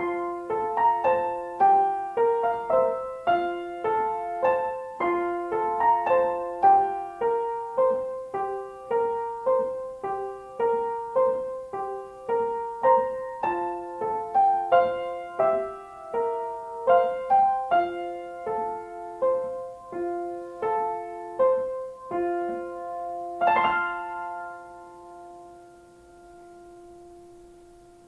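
Grand piano played by hand: a simple tune of struck notes in a steady rhythm. Near the end a last strike is held and left to ring out, fading away.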